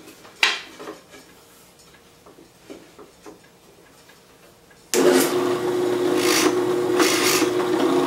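A wooden workpiece is set into a self-centering drill-press jig with a sharp knock and light scrapes. About five seconds in, the drill press motor switches on and runs steadily, with bursts of scraping as the bit bores into the wood.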